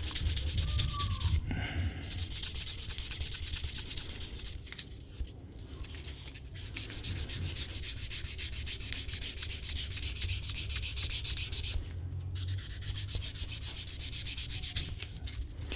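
Sandpaper rubbed quickly back and forth along a leather edge coated with dried acrylic edge paint, sanding the painted edge smooth and knocking down its shiny spots. The scratching stops briefly a few times.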